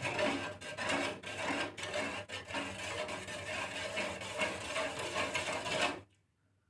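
A spatula scraping and stirring a moistened mix of millet and black glutinous rice in a pan, a steady run of quick, irregular scraping strokes. It cuts off abruptly about six seconds in.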